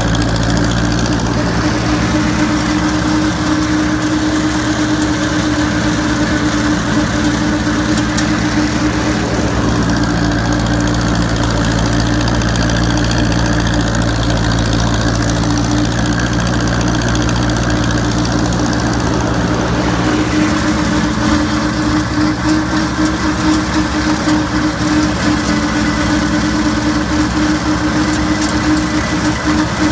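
Ford 961 tractor engine running steadily under load while driving a Land Pride rotary mower through tall grass.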